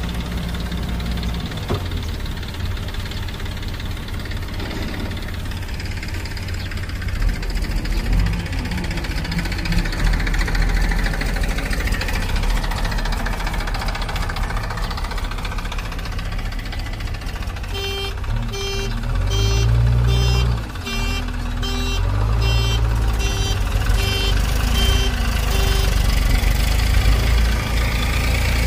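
Diesel engines of a JCB backhoe loader and a Massey Ferguson tractor running steadily under load while moving earth. In the second half a high electronic beep repeats about one and a half times a second for several seconds.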